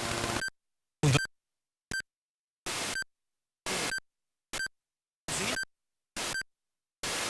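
Walkman portable radio being tuned: short bursts of static broken by silences, about one a second, with a brief snatch of a station's sound about a second in.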